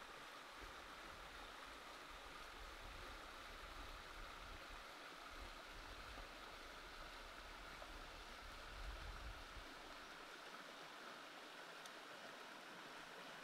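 Faint, steady outdoor background hiss, with an uneven low rumble underneath that fades out about nine seconds in.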